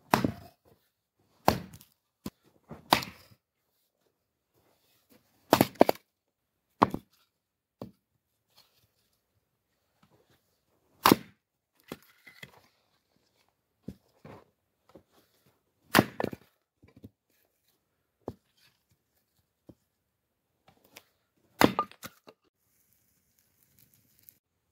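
Axe splitting firewood on a chopping block: about eight sharp chops and cracks, a few seconds apart, with lighter knocks of wood between them.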